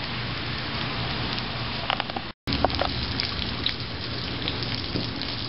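Pork roast searing in hot olive oil in a cast-iron Dutch oven: a steady sizzle with scattered small crackles and pops. It drops out abruptly for a split second a little over two seconds in, then carries on.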